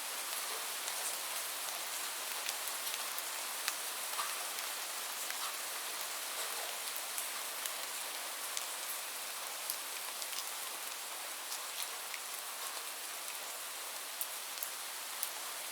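Light rain falling steadily, a soft hiss with scattered sharp ticks of individual drops hitting a surface.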